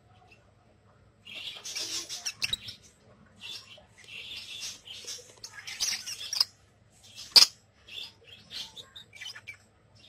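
Small caged parrots, lovebirds among them, chattering in repeated bursts of high chirps. A single sharp click stands out about seven seconds in.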